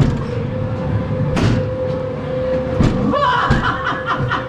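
Haunted-house dark ride car rumbling along its track under a steady hum, with a loud bang about a second and a half in and another near three seconds, followed by a warbling, rapidly pulsing higher sound.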